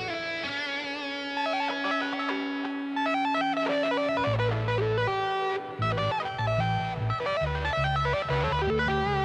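Electric guitar playing a melodic lead line with bent, wavering notes, over low bass notes that come in about four seconds in.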